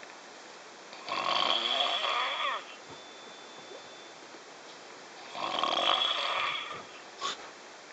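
A person snoring heavily in deep sleep: two long, rattling snores about four seconds apart. A short sharp sound follows near the end.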